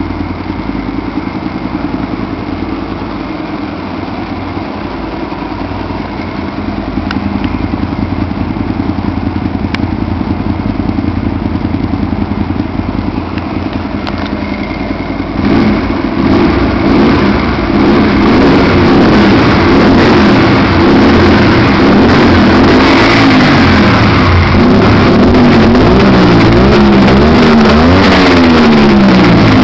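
Honda Varadero 125's V-twin engine breathing through a LeoVince SBK exhaust with the dB killer removed, idling steadily at first. It gets louder about halfway through, then is blipped up and down several times near the end.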